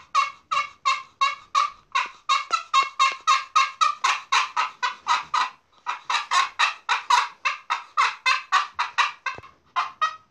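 Pot-style friction turkey call scratched with a wooden peg striker, giving a long run of quick, raspy yelps at about three a second, with a short break a little past halfway and another near the end. Here it is used to call in whitetail does.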